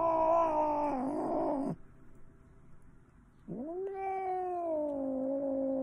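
A cat giving two long, drawn-out angry yowls while held for claw trimming: the first tails off and falls in pitch about two seconds in, and after a short pause a second yowl rises and holds.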